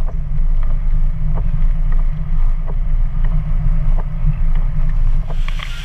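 Vehicle driving over a rough, wet dirt road, heard from inside the cab: a steady low rumble with a light tap about every two-thirds of a second.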